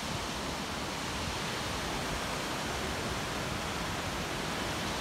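Steady rush of a river flowing below in its valley, an even, unbroken wash of water noise.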